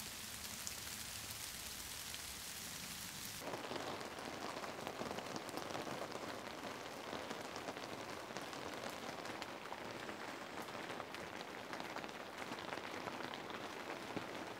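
Steady rain. At first it is a fine high hiss of rain on foliage. About three seconds in it becomes a denser patter of rain on a yurt's roof and skylight, heard from inside.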